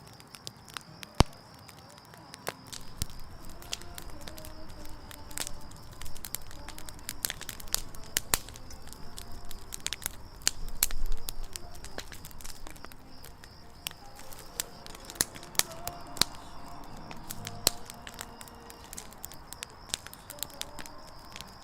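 Campfire of firewood burning, crackling with irregular sharp pops and one loud snap about a second in. A faint steady high tone runs underneath.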